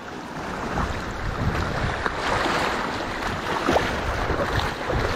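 Shallow sea water sloshing and splashing around wader-clad legs while wading through choppy water over a rocky reef, with a few small splashes and wind buffeting the microphone.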